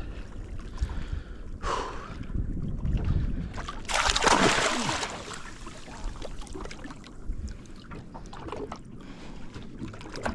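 Wind buffeting the microphone and water around a small fishing boat, a steady low rumble. A short burst of rushing noise comes near two seconds in, and a louder, longer one about four seconds in.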